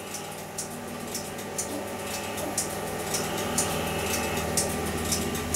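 Steady electrical hum and buzz from running bench test equipment, with faint sharp ticks about twice a second. A deeper hum grows louder about three and a half seconds in.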